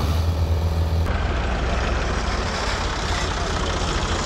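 Diesel tractor engines running hard under heavy load, pulling a loaded trolley stuck in mud. A low steady engine hum gives way abruptly about a second in to a rougher, noisier engine sound.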